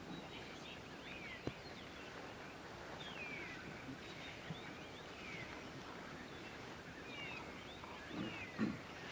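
Bush ambience with a bird calling again and again in short, high, falling chirps. A sharp click comes about a second and a half in, and two short low sounds near the end are the loudest part.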